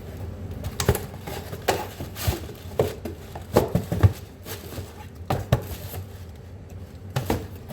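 A new pair of shoes and their cardboard shoebox being handled: a dozen or so irregular knocks and taps with some rustling as the box is opened and the shoes are taken out.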